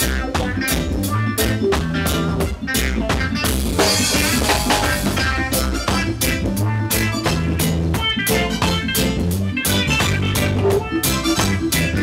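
Live band playing an instrumental groove: drum kit with a steady beat under an electric bass line, with other pitched instruments above, and a cymbal crash about three and a half seconds in.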